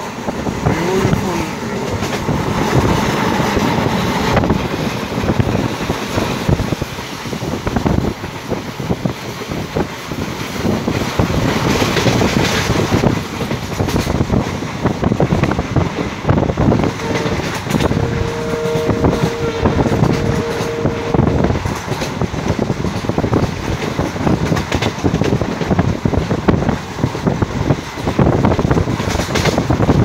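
Passenger train running at speed, with wheels clattering over the track and wind noise. About halfway through, the train's EMD WDP4D diesel locomotive sounds its horn once, a steady two-tone blast lasting about four seconds.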